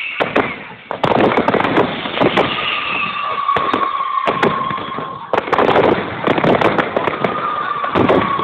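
Aerial fireworks display: shells bursting in a rapid run of bangs and crackles, loud from about a second in. A long, steady high whistle sounds over the bangs twice.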